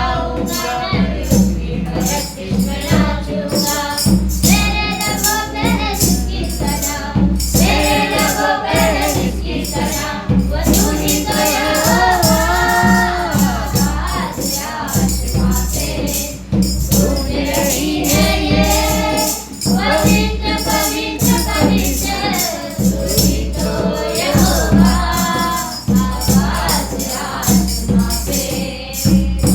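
Hindi Christian worship music: voices singing over a steady beat with tambourine-like shaking.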